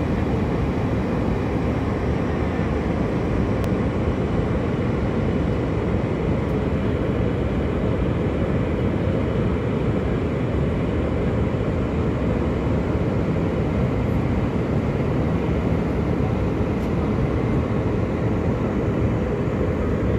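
Steady cabin noise inside an Airbus A321 airliner in flight: an even, low rushing of engines and airflow that holds at one level throughout.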